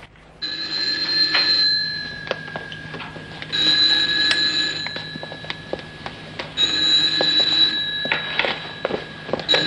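Telephone ringing in repeated rings of about a second and a half, one starting roughly every three seconds, with a fourth ring beginning at the very end.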